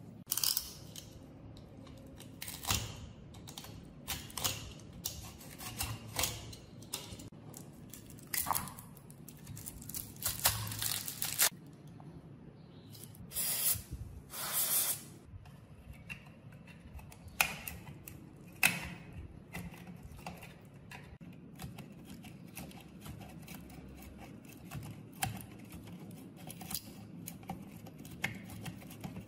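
Pliers clicking and scraping on a rusty metal blower housing while it is taken apart, with two short hisses from an aerosol spray can, sprayed through its straw, about halfway through.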